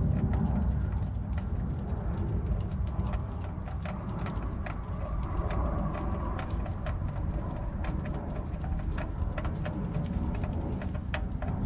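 Scattered small clicks and taps over a steady low rumble as an oil filter is worked loose by hand under the vehicle.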